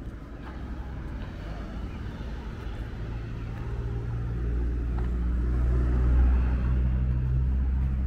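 A car's engine close by: a low steady hum that comes in about three seconds in, grows louder to a peak near six seconds, then eases slightly.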